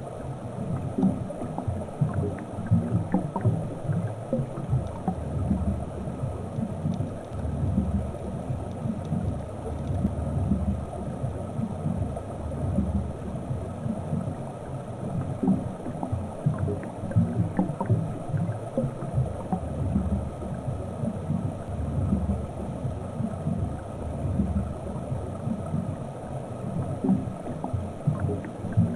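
Muffled, uneven low rumble of water moving around an underwater camera housing, with scattered faint ticks.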